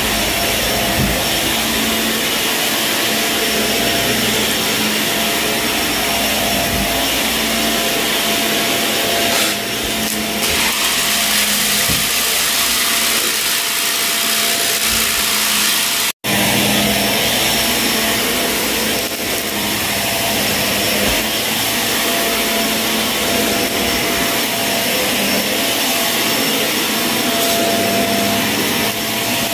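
Shark vacuum cleaner running on a dirty carpet: a steady motor whine and rushing air, with scattered crackles of debris being sucked up. The sound cuts out for an instant about halfway.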